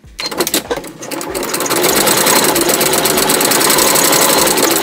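Electric sewing machine stitching under foot-pedal control. It starts in a few short stop-start bursts, then speeds up into a fast, steady run of stitches.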